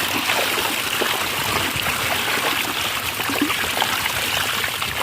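Water of a waterfall running steadily, splashing and gurgling.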